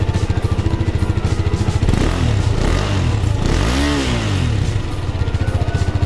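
KTM RC250 Special Edition's single-cylinder engine idling through its side-mounted muffler. About two seconds in it is blipped several times, the revs rising and falling, with the biggest rev peaking about four seconds in. It then drops back to idle.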